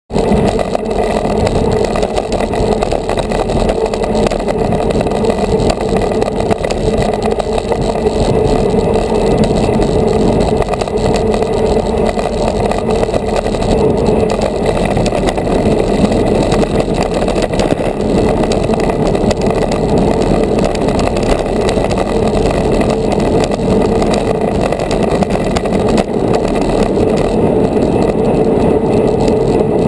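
Steady wind rush over a GoPro's microphone on a road bicycle ridden at racing speed.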